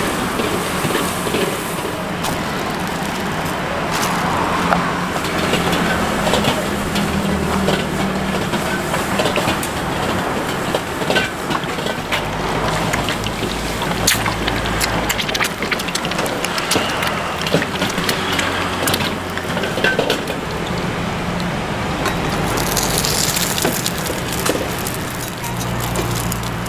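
Noodles being stir-fried in a wok over a gas burner: a steady sizzle with many quick clicks and scrapes of a metal spatula against the wok.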